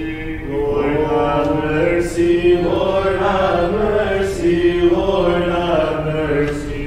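A man chanting a hymn of Orthodox Vespers unaccompanied, holding long notes and moving from pitch to pitch in the plain, recitative style of Orthodox church chant.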